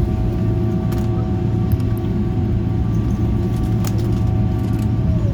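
Steady engine drone of an Airbus A340 heard from inside the cabin: a loud low rumble with several steady hums layered over it, broken only by a couple of faint clicks.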